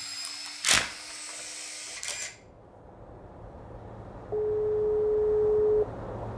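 A cinematic transition effect in the first two seconds: a bright whoosh and hit with shimmering ringing tones, the loudest moment. About four seconds in, a telephone ringback tone sounds once: a single steady low beep of about a second and a half, the ringing tone heard while an outgoing call waits to be answered.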